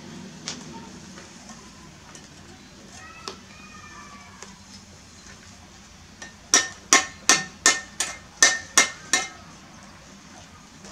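A steel brick trowel chopping at a hand-held clay brick to trim it: about eight sharp metallic strikes, roughly three a second, with a ringing tone from the blade, starting a little past halfway through.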